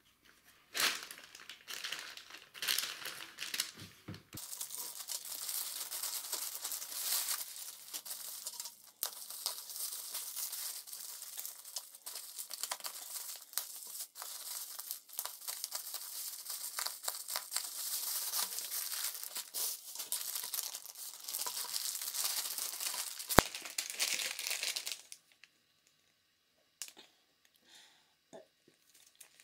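Bubble wrap and plastic packaging crinkling and tearing as a parcel is handled and cut open, a dense crackle lasting most of the time, with one sharp click a little before it stops. Only a few faint rustles follow near the end.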